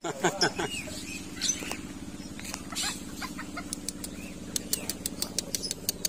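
Short clucks and chirps from bantam chickens and birds over a steady low hum, mostly in the first three seconds. From about four and a half seconds in comes a rapid, regular ticking, about five ticks a second.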